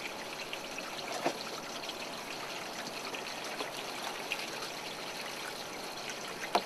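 Steady trickle of running water, as from the seawater flow into a live-bait tank, with a couple of faint knocks as a dip net on a pole is worked through the tank.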